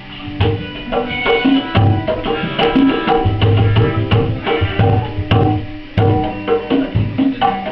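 Live hand drums playing a quick rhythm of low booming strokes and sharper higher hits, with ringing pitched tones over them, starting about half a second in.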